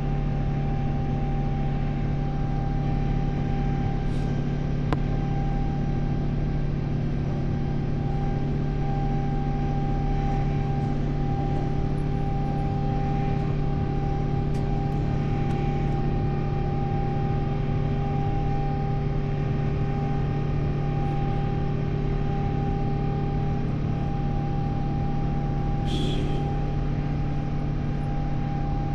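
Airliner cabin noise in flight: a steady roar of engines and airflow with a constant low hum and a thin steady tone above it. A faint click comes about five seconds in.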